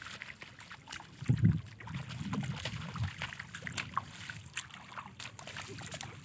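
Seawater sloshing and splashing in the shallows, with irregular low rumbles, the strongest about a second and a half in, and scattered small clicks.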